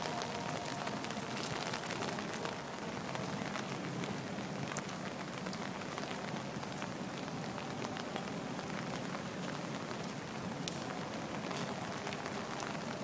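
Steady rain falling on wet paving and ground, with scattered sharper drip ticks.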